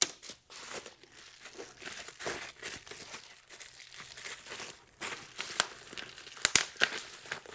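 Bubble wrap crinkling and being pulled open by hand: a continuous run of crackling, with a few sharper snaps in the second half.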